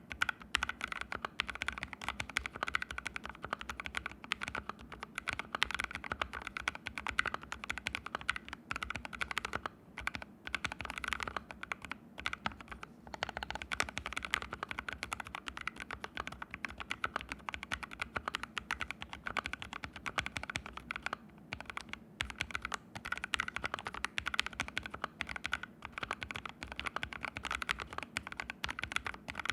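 Mechanical keyboard fitted with fully lubed Haimu Sea Salt switches, typed on steadily and fast, a dense run of keystroke clicks with a few brief pauses. The keyboard sits on a bare floor with no desk mat beneath it.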